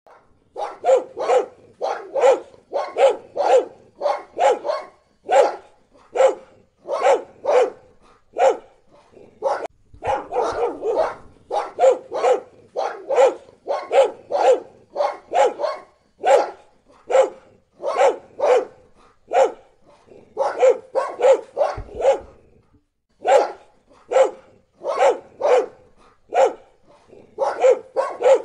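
A dog barking loudly and repeatedly, in quick runs of two or three barks with short gaps between them, and a longer pause about 22 seconds in.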